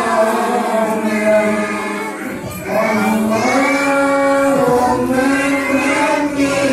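A group of voices chanting together in long held notes, an Islamic devotional chant, with a brief break about two seconds in.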